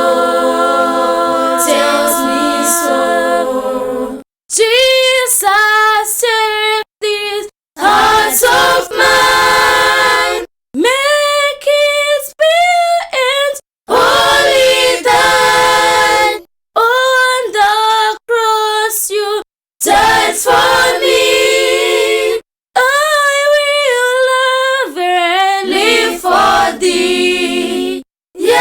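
A cappella group singing in harmony, women's voices prominent. The singing breaks off into abrupt, brief dead silences several times between phrases.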